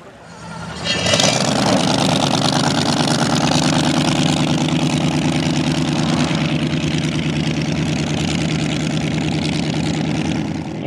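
Supercharged V8 engine of a flat-bottom hot rod boat comes up loud about a second in and then runs steadily as the boat pulls away across the water.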